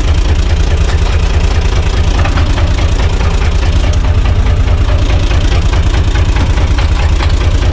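UTB 445 tractor's three-cylinder diesel engine running steadily, heard from inside the cab as a loud, constant low rumble.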